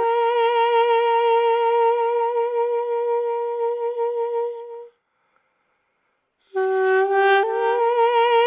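Music: a solo wind instrument holds one long wavering note, breaks off about five seconds in, and after a short silence comes back with a few changing notes.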